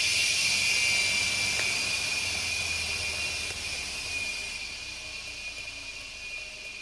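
Washing machine motor running at speed: a steady high whine over a whooshing hiss, loudest about a second in and then slowly fading.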